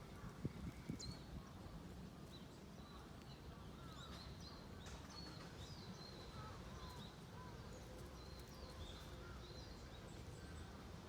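Faint outdoor ambience with a low steady rumble and small birds chirping now and then in the distance, plus a few soft knocks in the first second.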